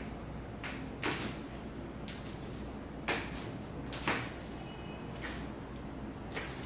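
Handling sounds of a massage stretch: about six short swishes and rustles as gloved hands and bodies shift against skin and clothing, over a steady low hum.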